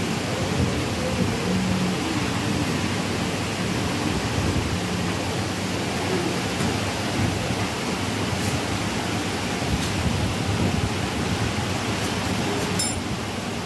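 Steady, even background noise, a dense hiss-like rush with no clear source, and a single sharp click near the end.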